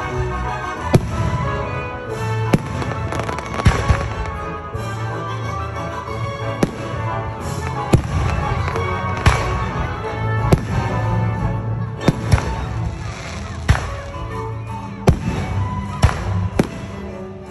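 Aerial firework shells bursting in the sky, a sharp bang every second or two, with music playing underneath.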